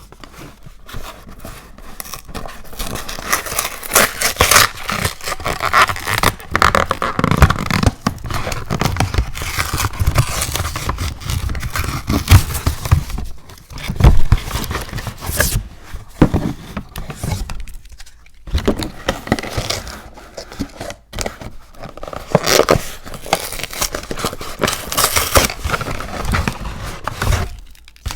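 Close-up scraping and crackling handling noises, irregular and continuous, with a few brief pauses.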